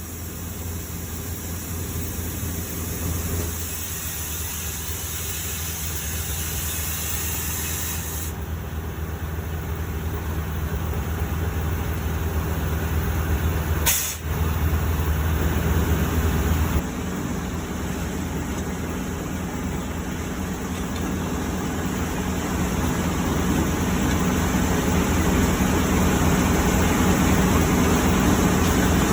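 Heavy truck engine running steadily, with a hiss of air over it for the first several seconds and a single sharp click about halfway through; the engine sound grows gradually louder.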